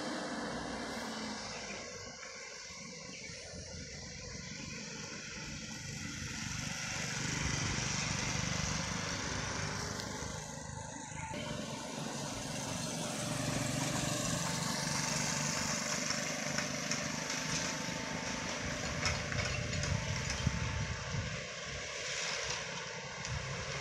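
Engines of heavily loaded trucks labouring as they crawl up a steep, sharp bend, growing louder at times as the trucks draw nearer.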